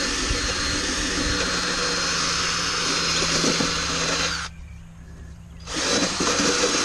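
Power tool running as it wire-brushes an aluminium bracket clean to bare metal before painting, a steady harsh whirring with a low hum. It stops about four and a half seconds in and starts again about a second later.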